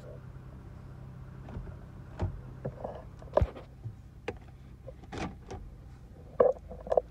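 Toyota Sienna minivan's engine idling steadily, heard from inside the cabin, with a scattering of short clicks and knocks from handling in the driver's seat; the loudest knocks come near the end.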